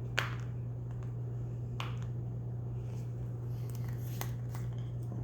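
A few sharp, light clicks and taps from small objects being handled, over a steady low hum.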